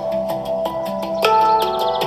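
Hang drum music: struck notes ringing and overlapping. In the second half, a quick run of short, falling bird chirps sounds over the notes.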